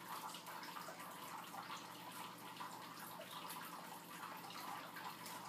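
Faint steady hiss of room tone with a low background hum.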